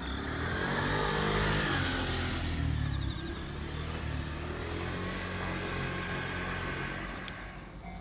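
A motor vehicle drives past, its engine note rising and then falling, loudest about a second and a half in. Steadier engine noise follows and fades near the end.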